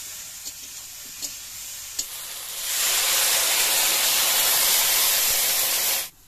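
Okra frying in a steel wok, with a few sharp spatula taps on the metal, then water poured into the hot oil sets off a loud steam hiss about two and a half seconds in that lasts some three seconds and stops abruptly near the end.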